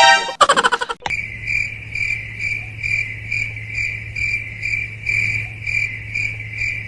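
Cricket chirping: an even, rhythmic train of high chirps, about two and a half a second, over a low hum. It starts and stops abruptly about a second in, like a stock 'crickets' sound effect. A short pitched sound ends in the first second.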